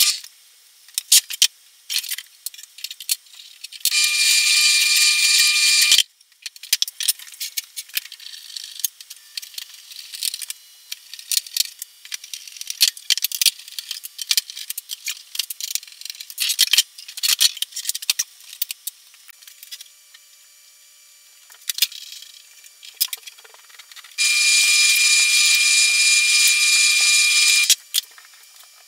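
A benchtop drill press runs in two spells of two to three seconds each, about four seconds in and again near the end, drilling holes in a thin panel. Between the spells come light clicks and clatter as parts and tools are handled on the workbench.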